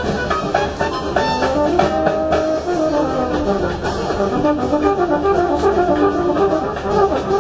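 Municipal concert wind band playing: brass and woodwinds together in a moving melody, the brass to the fore.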